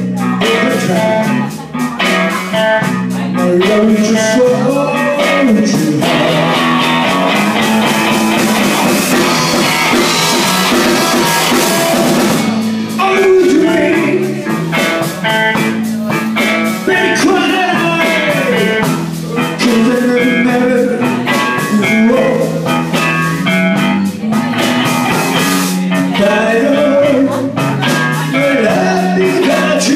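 Live blues-rock band playing loudly: electric guitars with bending lead lines over a drum kit.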